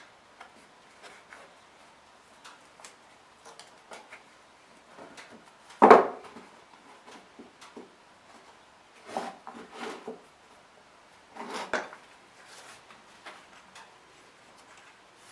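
Yellow tape pulled off in short jerks and pressed onto a small wooden box, with light clicks and knocks of the box handled on a wooden workbench. The loudest rasp or knock comes about six seconds in, with two more clusters of short rasps later.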